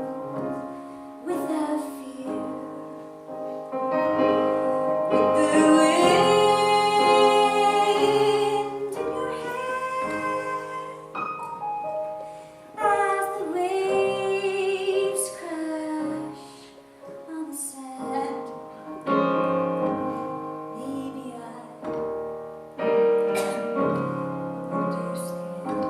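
A woman singing with piano accompaniment, including a long held note with vibrato about six to eight seconds in.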